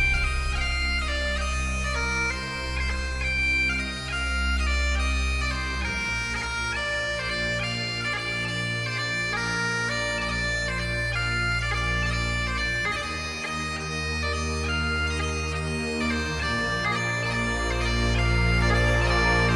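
Bagpipe music: a melody of stepped notes played over steady low drones.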